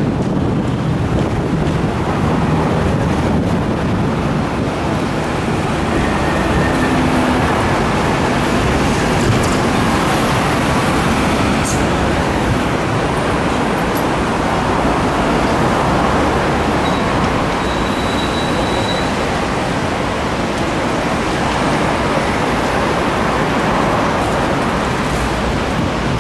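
Hong Kong double-decker tram running through city traffic, heard on board: a steady mix of the tram's running noise and road traffic.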